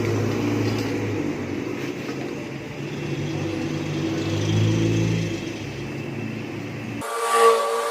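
Suzuki Raider 150 carburetted single-cylinder engine running through a Raider 150 Fi canister exhaust, its note easing and swelling with light throttle. The sound cuts off abruptly about seven seconds in, and a short louder sound of a different kind follows.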